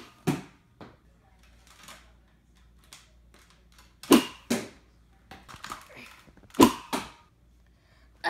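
Sharp plastic clacks and snaps of a Nerf Mega bow being drawn and shot, mostly in pairs about half a second apart. The loudest come about four seconds in and again about six and a half seconds in, with a few softer clicks between.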